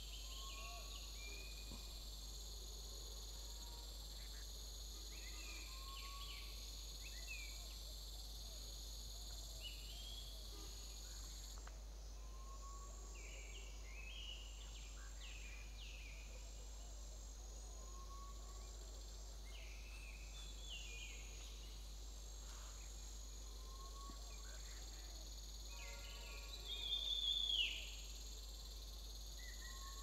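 Forest ambience: a steady chorus of insects droning with a regular pulse. Over it come scattered short bird chirps and a short whistle repeated every few seconds. Near the end there is one louder falling call.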